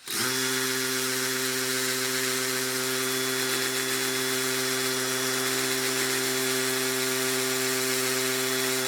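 Craftsman V20 20-volt cordless hammer drill's motor and chuck running at one steady pitch with a whir, coming up to speed at the start and stopping near the end.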